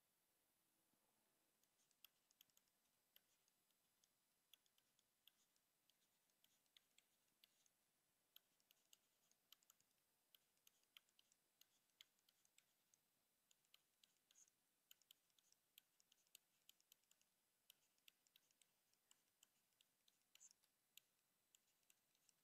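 Faint, irregular clicks and taps of a stylus on a tablet's writing surface during handwriting, several a second, over near silence.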